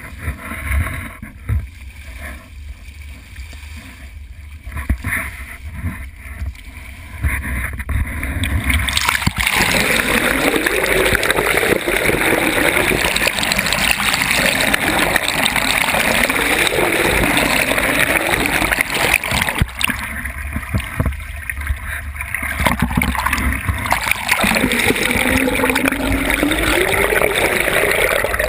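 Water sloshing and splashing around a camera skimming the sea surface beside a moving boat. About nine seconds in, the camera goes under and the sound becomes a loud, steady underwater rush of water streaming past it, with a lower tone that wavers up and down.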